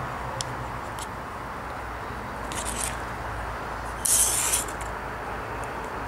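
Hands handling a plastic connector and wires: a few light clicks, then two brief scraping rustles, the louder one about four seconds in, over a steady low hum.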